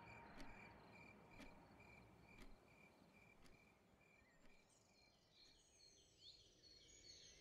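Faint sound-effect ambience: crickets chirping in a steady pulsing rhythm with a light tick about once a second, both fading out about four to five seconds in as birds start twittering.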